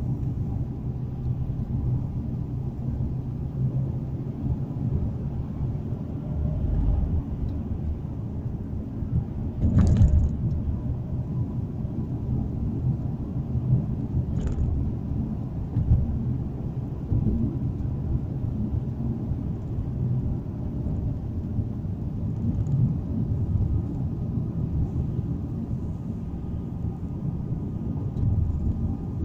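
Steady low road and engine rumble heard from inside a moving car's cabin. There is a brief knock about ten seconds in and a smaller click a few seconds later.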